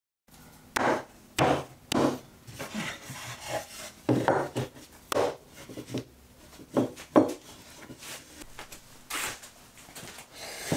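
Pine boards being pushed together onto wooden dowels in a dry fit: a series of irregular wooden knocks and scraping rubs as the dowel joints are seated.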